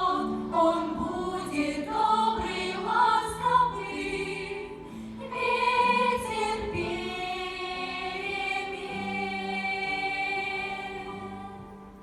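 Choir singing, settling into one long held chord that fades out near the end.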